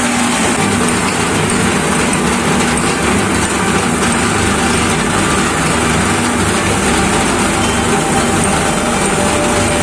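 Concrete vibrating table running with a loud, steady mechanical buzz, shaking plastic molds of wet cement to settle the mix into the paver-tile molds.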